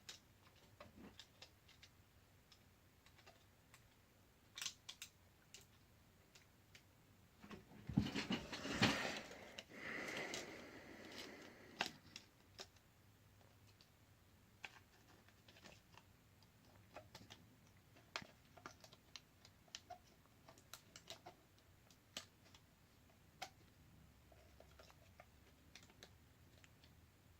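Small scattered clicks and taps of fingers and a small tool on a smartphone's internal parts as a ribbon cable is pressed into place, with a louder stretch of scraping and rustling about eight to twelve seconds in.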